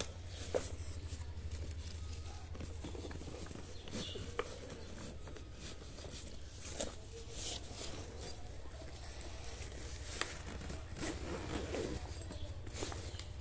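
Handling noise of a fabric backpack: rustling and scraping with scattered light clicks and knocks as a plastic water bottle is worked into its mesh side pocket, over a steady low hum.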